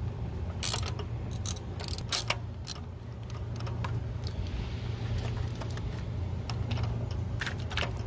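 Ratchet wrench clicking in short, irregular strokes, loosening a spark plug, over a steady low hum.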